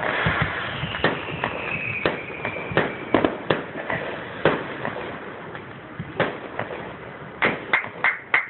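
Fireworks going off: sharp bangs and pops at irregular intervals, with a whistle that slides slowly down in pitch over the first couple of seconds and a quick run of bangs near the end.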